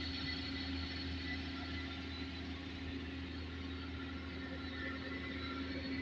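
Excavator's diesel engine running steadily, an even hum with a faint high whine above it.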